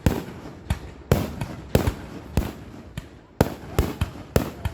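Fireworks going off: about a dozen sharp bangs in an irregular quick series, each with a short echoing tail.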